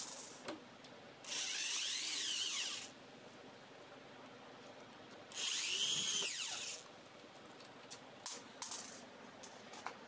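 Cordless drill-driver driving screws into a mortise lock's faceplate: two runs of about a second and a half each, the motor whine rising and falling in pitch, with a few light clicks between.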